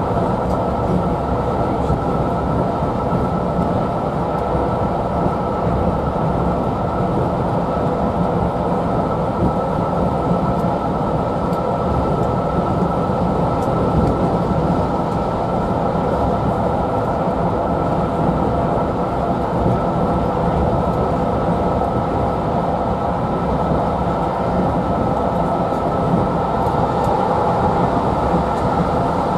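Steam-hauled railway passenger coach running at speed, heard from inside: a steady rumble of the coach on the rails with a constant hum.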